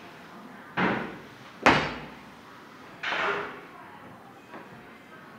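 A loaded barbell banging down in a weightlifting gym. The loudest, sharpest slam comes a bit under two seconds in and rings briefly, with two softer, longer bangs about a second before and a second after it.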